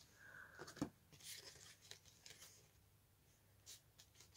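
Faint rustling and light taps of board-game cards being picked up and looked through, with one sharper tap about a second in.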